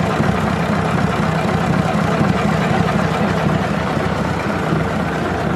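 Multi-cylinder diesel engine running steadily, heard up close over its inline injection pump.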